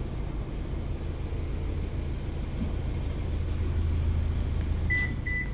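Steady low hum, then near the end a click and two short, high, evenly spaced beeps from a 2019 Subaru Outback's rear gate warning beeper, signalling that the rear gate is operating.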